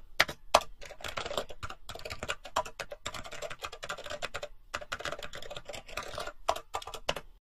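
Keys clicking in rapid, irregular typing on a computer keyboard, used as a typing sound effect. The clicks stop just at the end.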